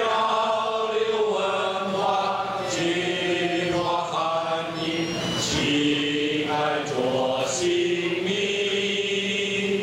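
A large group of voices, mostly men, singing a school anthem together in unison, with notes held and moving from pitch to pitch.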